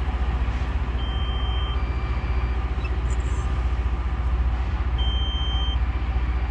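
Rail grinder train working on the track: a steady low rumble with grinding noise above it, and a short high two-tone electronic beep about a second in and again near the end.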